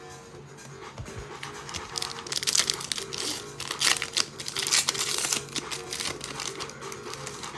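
A pack of Bowman Chrome baseball cards being torn open, its foil wrapper crinkling and crackling for several seconds, over quiet background music.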